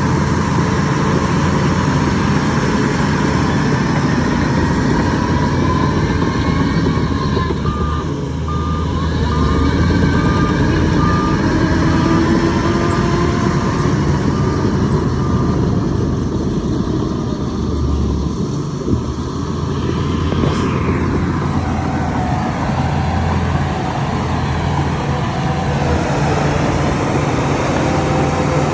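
Heavy diesel earthmoving machinery running steadily, with a reversing alarm beeping about once a second for roughly eight seconds near the middle.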